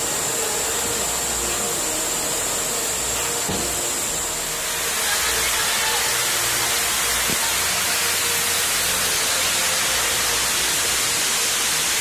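Rushing river water running over rocks in rapids, a steady hiss that turns louder and brighter about four and a half seconds in.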